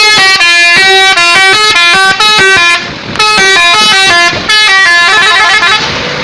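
Truck telolet horn playing a long, very loud melody of quickly changing notes, with a short break about three seconds in, trailing off near the end.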